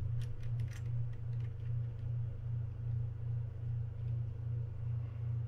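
A low background hum swelling about three times a second, with a few light metallic clicks in the first second and a half as small metal handle parts of the Penn International 20 reel are handled and fitted onto the handle shaft.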